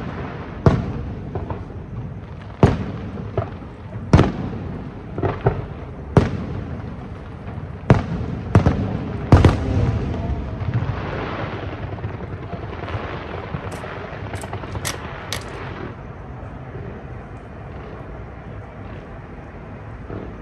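Aerial firework shells bursting: about eight sharp bangs in the first ten seconds, each with a short rumbling tail. A quick cluster of higher, sharper cracks follows around fourteen to fifteen seconds in, and then the bursts die away to a low background noise.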